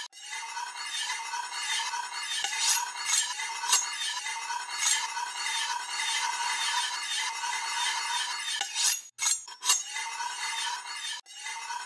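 Sound effect of a steel knife tip scraping and turning on a hard countertop: a steady metallic scraping hiss with a few clinks. It cuts out abruptly about nine seconds in and again near the end.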